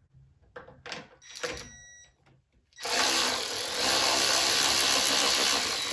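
A Ryobi cordless tool starts about halfway in and runs steadily for about three seconds, spinning a bolt out quickly. A few light handling clicks come before it.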